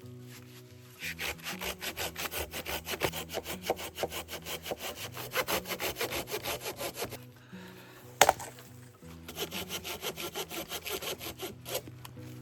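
Hand saw cutting through wood in quick back-and-forth strokes, about four a second. The sawing pauses for a sharp knock about eight seconds in, then resumes.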